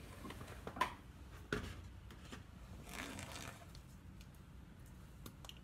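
Faint handling sounds of a cracked butternut being picked apart by hand: shell pieces clicking and scraping, with two sharp clicks about one and one and a half seconds in.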